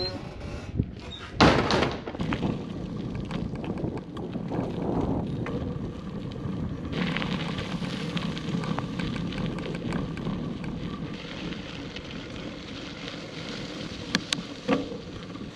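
A portable toilet's plastic door bangs shut about a second and a half in. Then a Hyper Explorer mountain bike rolls along a packed dirt trail: steady tyre and wind noise, with a couple of clicks near the end.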